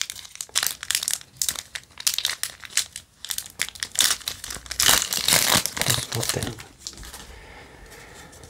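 Foil wrapper of a Yu-Gi-Oh! booster pack crinkling and tearing as it is pulled open by hand, in quick irregular crackles that stop about seven seconds in.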